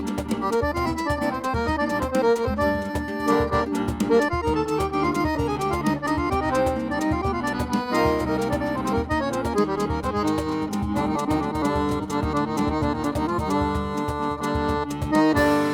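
Accordion playing an instrumental piece: a quick-moving melody over chords and bass, without pause.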